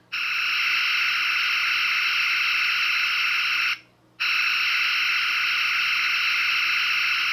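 Original-series Star Trek phaser firing sound effect played from a sound board's small speaker: two long steady blasts of about three and a half seconds each, with a short break between them about four seconds in.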